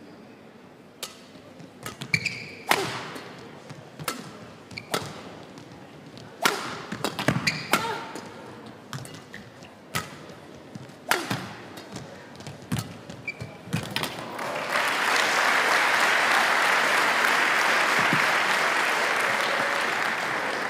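Badminton rally: rackets strike the shuttlecock about a dozen times at an irregular pace. About fourteen seconds in, the rally ends and steady applause from the hall takes over.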